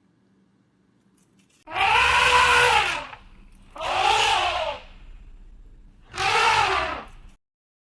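An animal calling three times, each call lasting about a second, with the pitch rising and then falling.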